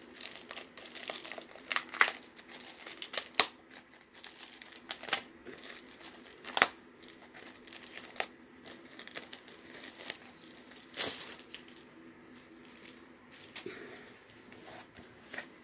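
Clear plastic shrink-wrap being torn and peeled off a paperback planner, crinkling in irregular sharp crackles, the loudest about two seconds in and again near eleven seconds.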